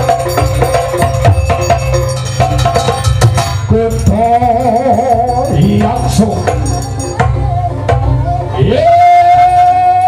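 Live Jaranan ensemble music: kendang drums and percussion beating a fast, steady rhythm. A wavering melody line comes in about four seconds in, and a long held high note begins near the end.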